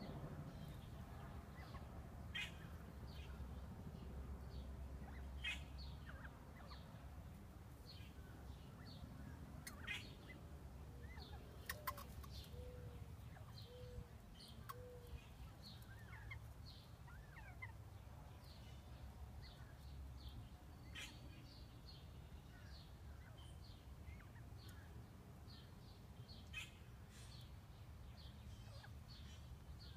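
Northern bobwhite quail calling softly: faint, scattered short high chirps and peeps, with a run of four soft low notes about halfway through. A few sharp clicks are heard over a steady low background rumble.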